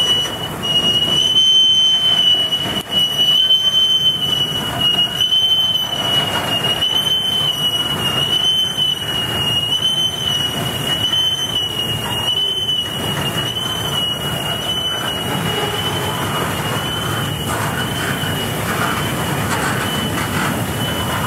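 Rail train of flatcars loaded with long welded rail rolling past, its wheels rumbling on the track with a steady high-pitched squeal that wavers slightly in pitch. The squeal grows fainter over the last several seconds.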